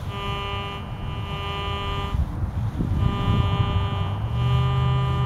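Metal detector in pinpoint mode giving a steady, buzzy tone over a buried coin. The tone holds for about two seconds, drops out for about a second, then comes back, with a brief break near the end.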